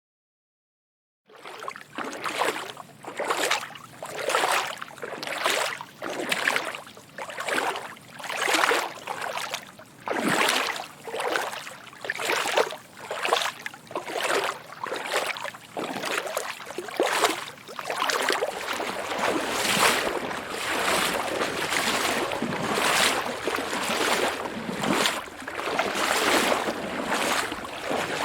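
A person wading through water, each stride a splash and swish, about one and a half steps a second. Starts about a second in; in the later part the steps come faster and the splashing runs together into a nearly continuous churn.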